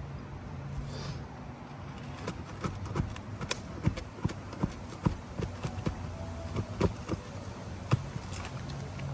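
Hand tools tapping and prying on asphalt roof shingles while loosening them for a repair: an irregular run of sharp taps and clicks, starting about two seconds in and easing off near the end.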